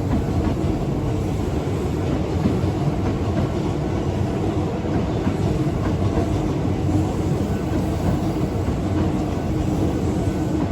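Hankyu Railway train passing through a level crossing at close range: a steady, loud rumble of wheels on the rails.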